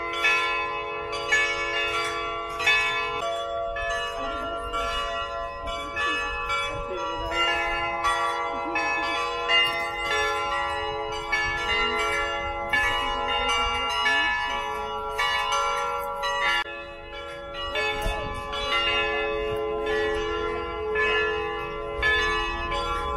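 Church bells ringing, struck over and over at about two strokes a second, each stroke's tones ringing on into the next: the bells calling the faithful to Mass.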